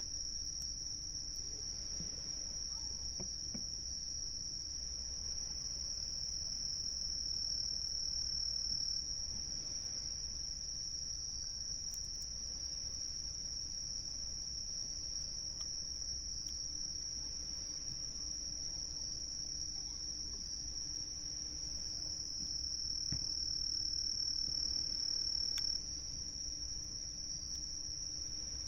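Insects singing in a continuous high-pitched drone that swells a little twice, over a low steady rumble.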